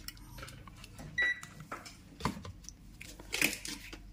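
A single short electronic beep about a second in, followed by a few light clicks and knocks of handling on the workbench.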